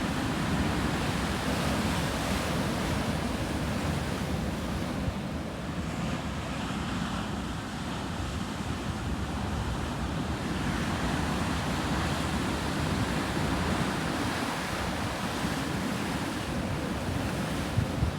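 Sea waves breaking and washing on the shore: a continuous surf noise that swells and eases as the waves come in, with some wind on the microphone.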